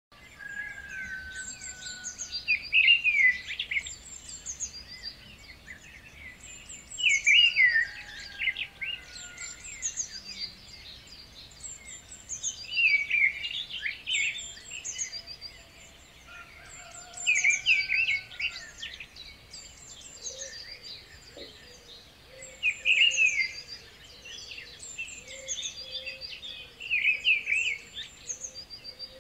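Birds singing and chirping, with a bright song phrase coming back about every four to five seconds over a soft background hiss.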